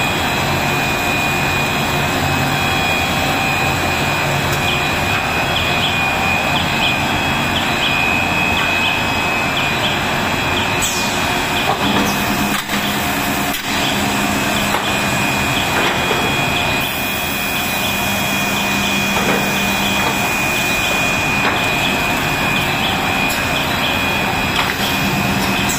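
Cast stretch film production line running: a steady mechanical hum and rush of its motors and winding rollers, with a constant high whine over it. The level dips briefly about halfway through.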